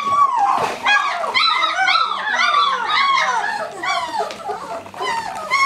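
A litter of 19-day-old German Shepherd puppies whining and squealing, many short rising-and-falling cries overlapping several times a second.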